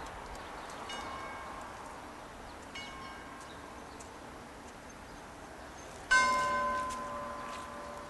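Bell tones: faint chimes about one and three seconds in, then a loud bell strike near the end that rings and fades away over about two seconds, over a steady background hiss.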